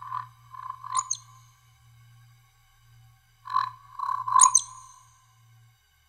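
Eurasian woodcock's roding call, twice: each time three low croaking grunts followed by a sharp high squeak. A faint low drone runs underneath.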